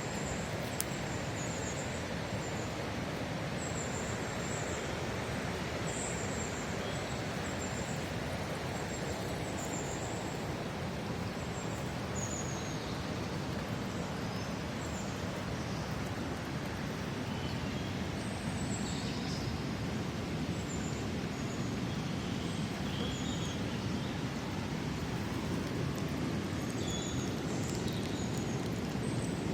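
Outdoor nature ambience: a steady rushing noise, with brief high chirps scattered throughout.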